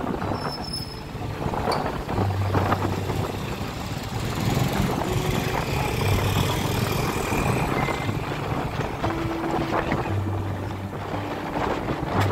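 Motorbike engine and street-traffic noise heard from the rider's seat, under background music with a low note that comes and goes every couple of seconds.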